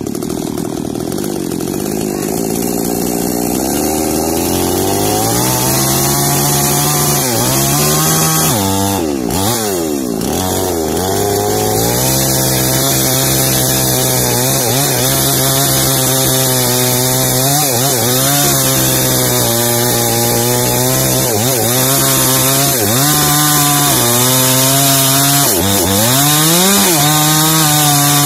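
Small two-stroke New Paxton mini chainsaw cutting into the trunk of a jengkol tree. It revs up a few seconds in, then its engine pitch dips and recovers again and again as the chain loads up in the wood.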